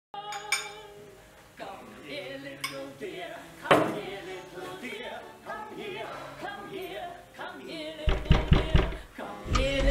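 Background music with singing voices, and a few heavy low thumps about eight seconds in.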